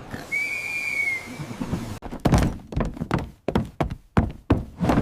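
A short, steady high whistle lasting about a second, followed by a run of heavy thuds, two or three a second, in a cartoon soundtrack.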